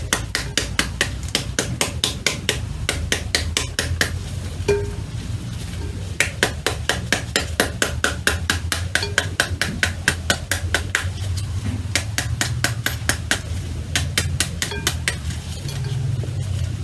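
Large metal spoon whacking the back of a halved pomegranate in quick, even strikes, about four a second, knocking the arils out into a glass bowl; the tapping pauses briefly a couple of times.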